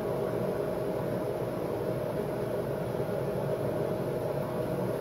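A steady mechanical hum with hiss, unchanging throughout, like a running fan or motor.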